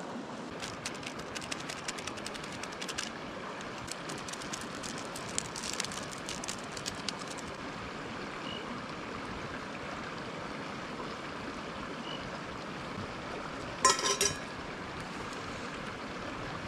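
River water flowing steadily. Clusters of rapid small clicks sound over it during roughly the first seven seconds, and a brief pitched sound comes near the end.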